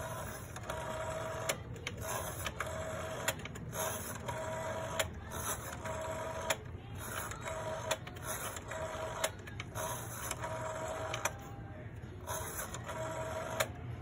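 Rotary dial of a beige desk telephone, pulled round and released about ten times in a row. Each time it winds back to rest with a whirring buzz of about a second, and sharp clicks fall between the returns.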